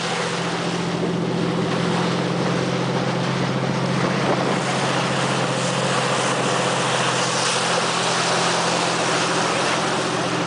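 A boat's engine hums steadily under the rush of water along the hull as the boat moves at sea.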